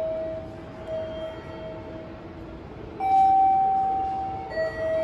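Station chime ringing a two-note 'ding-dong', a higher note about three seconds in, falling to a lower one a second and a half later. The lower note of the previous chime is still fading at the start.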